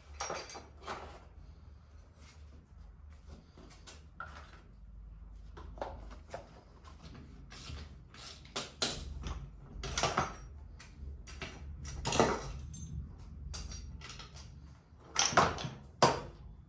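Hand tools and engine parts clicking and knocking irregularly while a Honda Dio scooter engine is being taken apart. The loudest knocks come about ten, twelve and fifteen seconds in.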